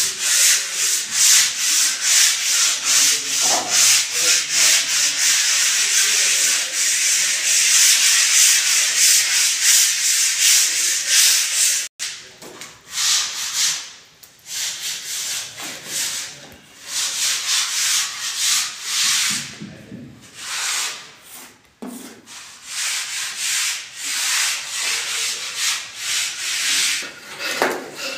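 Sandpaper rubbed by hand over a plastered false ceiling in quick back-and-forth strokes, a steady rasping hiss. The strokes break off sharply about twelve seconds in, then carry on in looser, more spaced runs.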